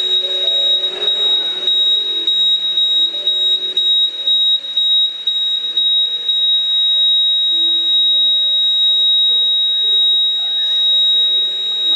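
Background music with a slow melody of held notes, under a steady high-pitched whine.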